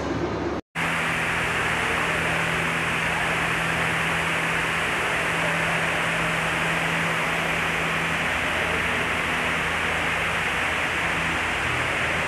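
Steady rushing hiss of water falling down a tall indoor waterfall wall, even throughout, with a faint low hum underneath. It starts after a brief dropout just under a second in.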